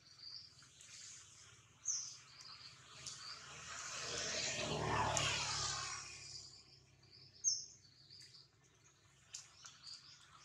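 Outdoor wildlife ambience: a steady high insect drone, with small birds giving two sharp chirps, one about two seconds in and one about seven seconds in. Around the middle a broad rushing noise swells and fades over about three seconds, the loudest sound heard.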